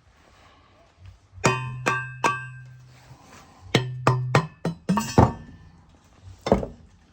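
Background music: a run of sharply plucked notes that die away, bunched together from about a second and a half in.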